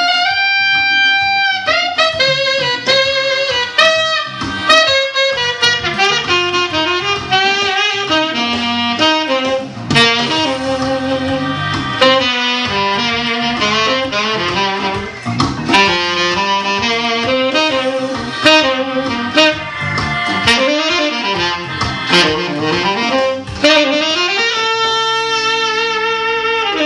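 Saxophone playing a jazzy melodic line with quick runs over a backing track with drum hits, settling onto a long held note near the end.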